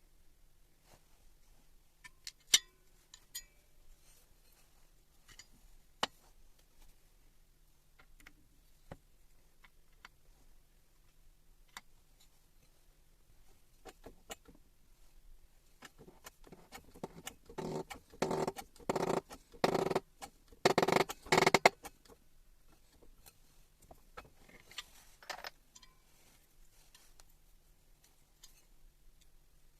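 Scattered clicks and taps of metal parts and tools being handled during a power-tool rebuild. A little past the middle comes a run of about a dozen louder knocks, roughly two a second, lasting about five seconds.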